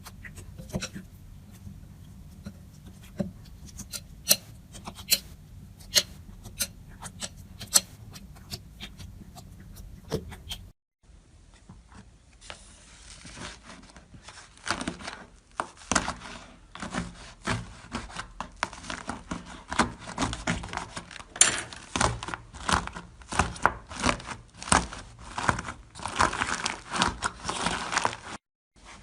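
Slime being played with by hand, giving sharp pops and crackles. After a cut about eleven seconds in, the crackling and popping comes thicker and faster.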